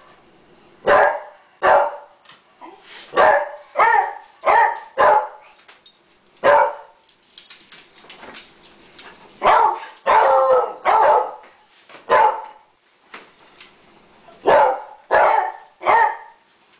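Beagle barking, about fourteen loud barks in irregular runs with short pauses between.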